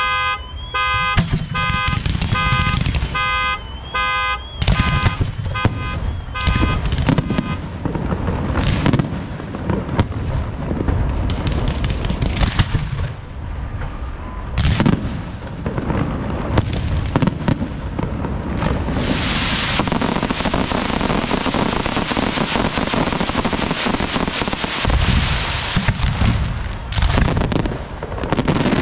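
Aerial fireworks going off: shells bursting with booms, then a dense, long crackle of crackling stars from about two-thirds of the way in, with more booms near the end. For the first several seconds a pulsing electronic alarm tone repeats about twice a second over the bangs.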